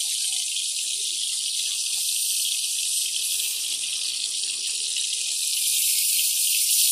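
Fish pieces deep-frying in a wok of hot oil: a steady sizzle that grows a little louder near the end.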